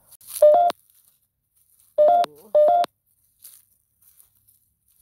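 Three short two-note electronic beeps from a phone running the GhostTube ghost-hunting app. Each beep steps up slightly in pitch. The first comes about half a second in, then two more close together about two seconds in.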